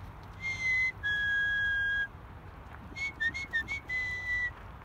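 A person whistling to call a dog back: a short high note, then a longer, slightly lower held note, and after a pause a run of quick short notes ending in another held note.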